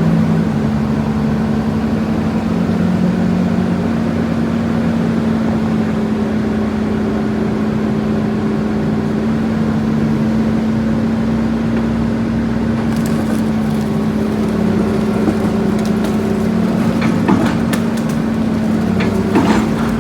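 Bulldozer's diesel engine running steadily with a constant low hum. In the second half, sharp metallic clanks and knocks come in over the engine, a few of them louder near the end.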